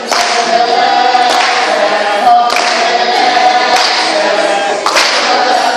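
A group of young men and women singing together without instruments, with hand claps on the beat about once every second or so.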